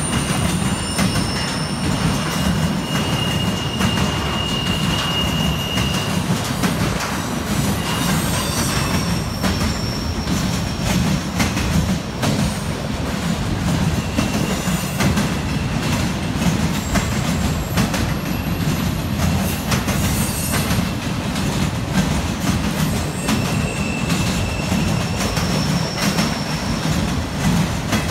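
Norfolk Southern freight train of loaded flatcars and autorack cars rolling past at steady speed, steel wheels rumbling and clattering over the rail joints of a diamond crossing. Thin high wheel squeals come and go a few times.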